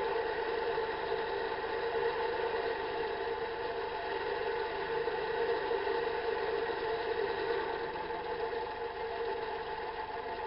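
Metal lathe running with a steady hum while taking a light turning pass, about six thousandths deep, on a 12L14 leaded steel bar.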